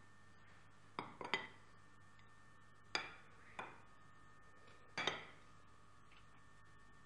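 Light knocks and clinks of hard objects on a work surface, in three groups about two seconds apart, over a faint steady hum.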